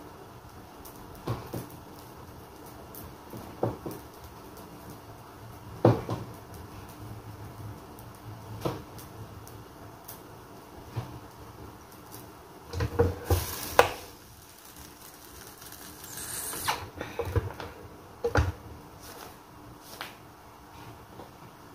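Scattered light knocks and clatters of kitchen handling at a countertop with an electric flatbread press and metal trays, with a short run of louder knocks about two-thirds of the way in and a brief scrape soon after, over a faint steady hum.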